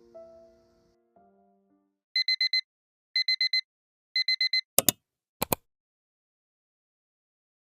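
Soft piano music fades out, then an electronic alarm beeps in three quick groups of four, about a second apart, followed by two sharp clicks.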